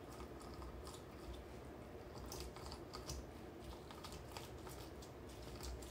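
Faint, irregular clicks and scrapes of a lime half being pressed and twisted on a plastic hand citrus reamer to juice it.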